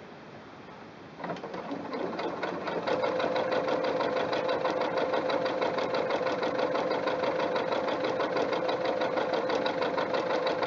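Singer Quantum Stylist 9960 computerized sewing machine starting about a second in, picking up speed, then stitching at a steady speed. It makes a rapid, even needle clatter over a steady motor hum.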